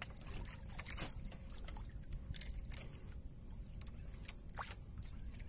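Water sloshing and lapping around a small outrigger boat on choppy sea, under a steady low rumble, with a few faint scattered clicks.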